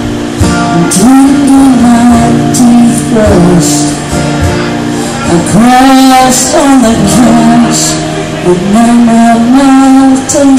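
A woman singing a song with acoustic guitar strummed underneath, live through microphones. She holds a long wavering note about halfway through.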